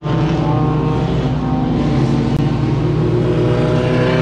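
Race car engines running at speed around the circuit, several engine notes overlapping and holding fairly steady.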